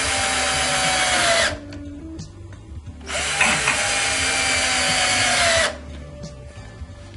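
Electric drill/driver running in two spells of about two seconds each, the second starting about three seconds in. The motor pitch sags just before each stop, as when a screw seats.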